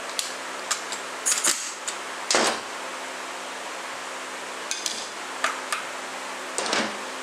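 Scattered clinks and clatter of hand tools and small metal parts against an aluminium automatic-transmission case during teardown. There is one louder rattle about two and a half seconds in, over a steady low hum.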